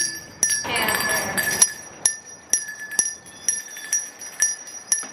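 A handbell rung steadily, about two strikes a second, each strike ringing on into the next. A voice is heard briefly about half a second in.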